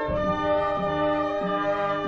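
Brass band playing slow, solemn funeral music: held chords over a bass line that moves to a new note about every two thirds of a second.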